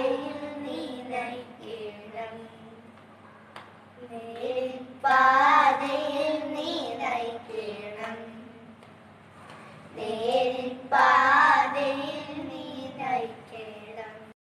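Children singing a Malayalam Christian devotional song, in phrases that each begin loud and trail off. The singing stops abruptly just before the end.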